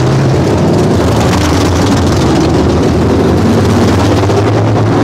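Grand National class race cars running at speed on the track, several engines together making a loud, steady drone whose pitch wavers slightly as they rise and fall through the turns.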